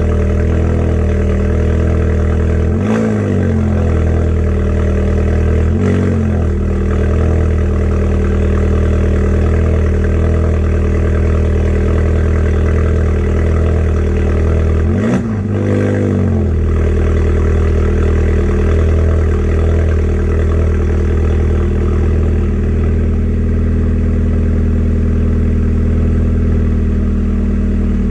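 Golf 6 R's turbocharged 2.0-litre four-cylinder, fitted with an aftermarket SLS downpipe, idling after a cold start, with three short throttle blips that rise and fall in pitch, about three, six and fifteen seconds in.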